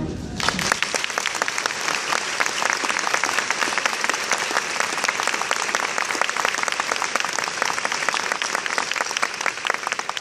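Audience clapping in sustained applause as the band's final chord dies away at the start.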